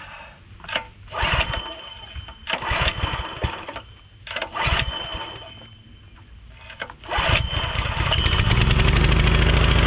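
Small single-cylinder engine of a Generac 2700 PSI pressure washer being pull-started. The recoil starter cranks it in several short pulls, then about seven seconds in it catches, rises in speed and runs steadily.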